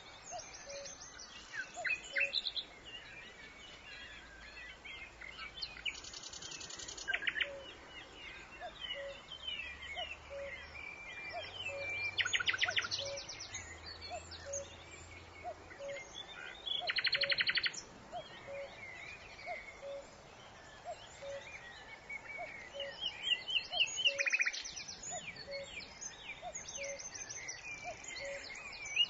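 A nightingale singing varied phrases of whistles and chirps, broken by fast, rattling trills. Under it a cuckoo calls faintly and steadily, its low two-note call repeating about once a second.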